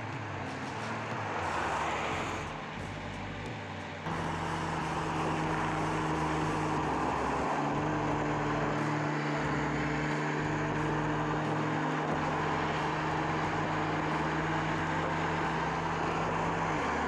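A car driving at speed, its engine holding a steady pitch over road and wind noise. About four seconds in the sound cuts abruptly to a louder, steadier engine drone.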